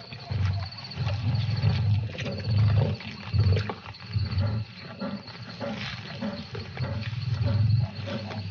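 Lions growling while feeding at a wildebeest kill: deep, rumbling growls in short bursts, one after another, with sharp clicks in between.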